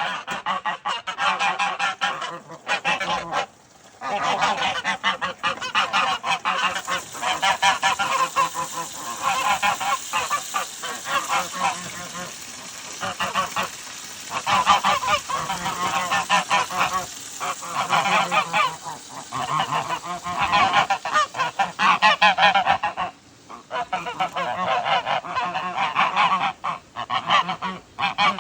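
A flock of domestic geese honking almost without pause, many loud overlapping calls, with brief lulls about three seconds in and again near the end.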